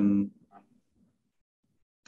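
A man's voice holds a short, level hesitation sound at the very start, then near silence.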